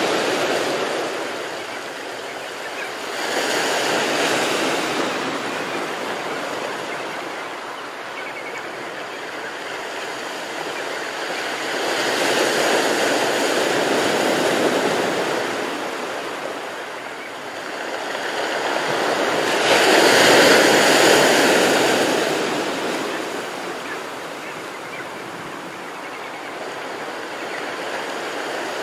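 Sea waves washing over shallow water, a steady hiss that swells and eases in slow surges every several seconds, loudest about twenty seconds in.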